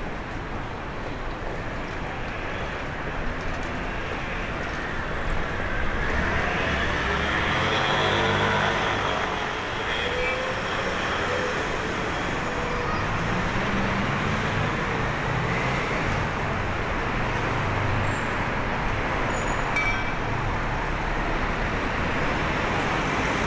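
Steady city street traffic, with motor vehicles passing close by; the loudest pass is about eight seconds in, and another comes through around thirteen to eighteen seconds.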